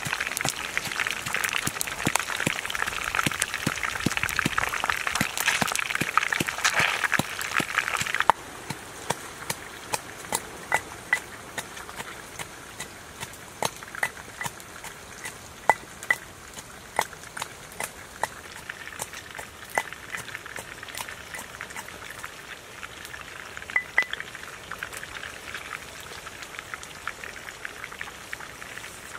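Whole fish frying in hot oil in a pan: dense sizzling and crackling. About eight seconds in it cuts off suddenly to a quieter background with scattered sharp knocks, a wooden pestle pounding in a mortar.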